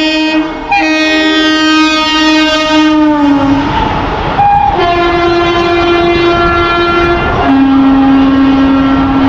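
Indian Railways WAP-4 electric locomotive sounding its horn in long blasts as it runs through at speed. The horn drops in pitch about three seconds in and again about seven seconds in as it goes by. The rumble of the passing train builds up beneath it.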